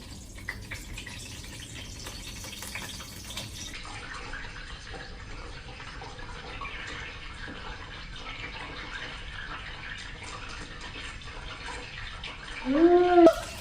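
Frozen pork pot stickers sizzling in a pan of oil on low heat: a steady crackling hiss. Near the end a short, louder vocal sound from the cook.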